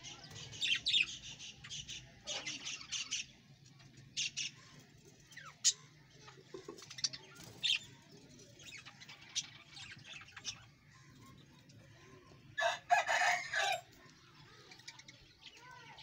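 A flock of budgerigars chattering and chirping, with quick pulsed trills in the first few seconds and scattered sharp chirps. Near the end a small rooster crows once, for over a second; it is the loudest sound.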